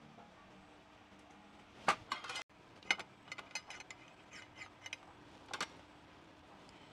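Light clinks and knocks of kitchen utensils against dishes, about a dozen short sharp strikes in irregular clusters, the loudest about two seconds and three seconds in.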